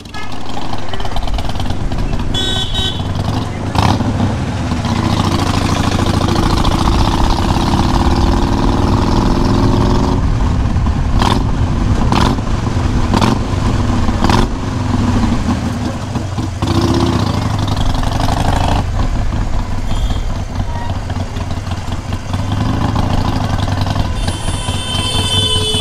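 Harley-Davidson Iron 883's V-twin engine running steadily as the bike is ridden through town traffic. Short vehicle horn toots sound a few seconds in and again near the end.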